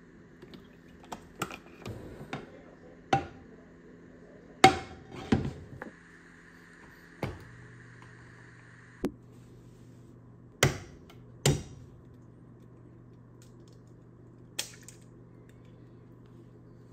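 Scattered sharp clicks and knocks of kitchen handling at a glass-top electric range: a plastic cooking-oil bottle, a nonstick frying pan set on the glass, and the range's control knob being turned. A low steady hum comes in partway through as the element is switched on, and near the end an egg is cracked on the pan.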